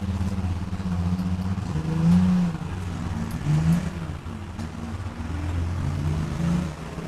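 A vehicle engine running with a low, steady hum whose pitch rises and falls a little a few times.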